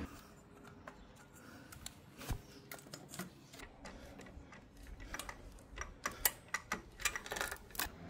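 Scattered light clicks and taps of hand tools and metal parts being handled, coming irregularly and more thickly near the end.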